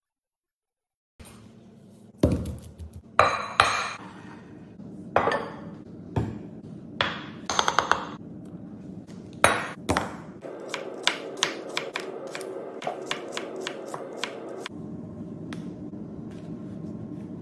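Food-prep knocks and clinks on a wooden cutting board, with garlic cloves tipped from a small bowl clattering onto the board, followed by several seconds of quick, even knife chops through an onion.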